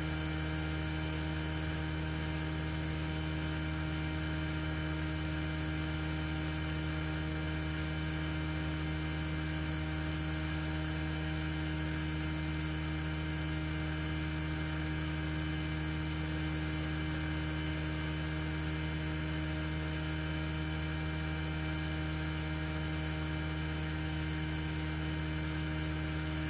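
Steady electrical hum: a low buzz with many evenly spaced overtones, unchanging in pitch and level.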